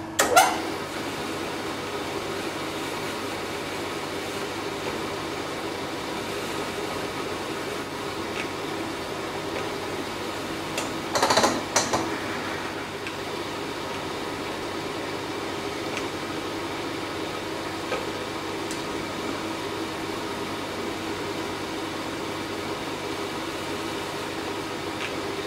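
Steady electric-motor hum of workshop machinery: a rotary phase converter running, with the milling machine's spindle turning a spot drill. About eleven seconds in there is a brief, louder burst of noise.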